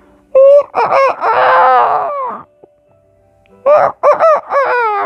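A rooster crowing twice: a long crow of about two seconds, then after a pause a second crow broken into several notes that fall in pitch.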